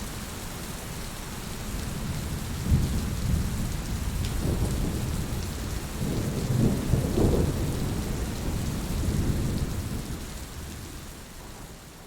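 Steady rain falling, with thunder rumbling under it. The rumble swells about three seconds in, peaks again around the middle, and fades away toward the end.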